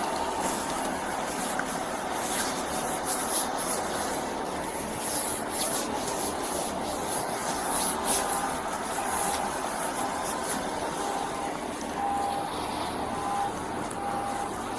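Scratchy rubbing and rustling of clothing against a body-worn camera's microphone over a steady background of noise. A faint beep starts repeating about eight seconds in.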